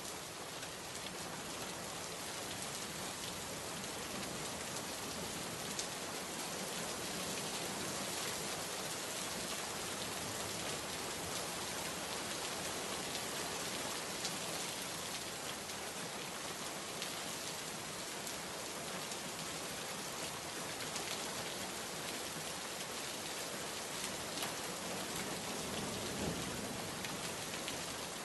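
Steady rain: a continuous hiss, dotted throughout with the patter of individual drops. About two seconds before the end comes a faint low rumble.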